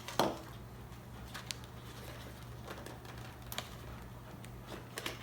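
Faint scattered clicks and light knocks of helmet liner parts and pads being handled and fitted, with one sharper sound just after the start, over a steady low hum.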